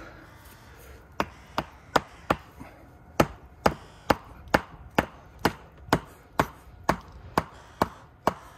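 Steady hammer blows, about two a second beginning a second in, driving a wooden stick plug into a knot-hole entrance in a log beehive: sharp wooden knocks.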